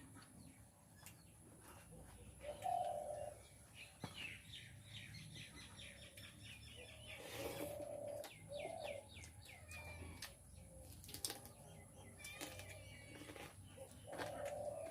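Faint bird calls: quick runs of short, high chirps coming several times, with a few shorter, lower calls in between.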